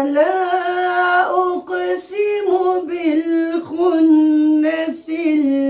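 A woman's voice chanting Quranic recitation in the melodic tajweed style, drawing out long held notes whose pitch steps up and down, with short breaks between phrases.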